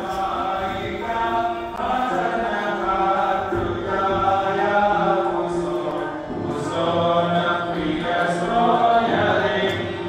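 A group of devotees chanting an aarti together, in long held notes.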